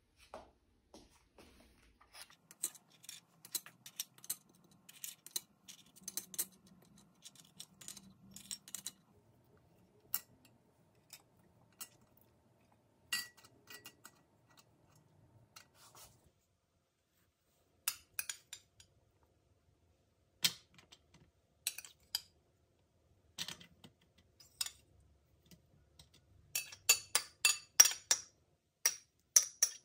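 Light clicks and taps of tea biscuits being laid in a glass baking dish, then a metal spoon tapping and scraping against a ceramic bowl while diced strawberries are pushed out. The spoon taps come fast and are loudest in the last few seconds.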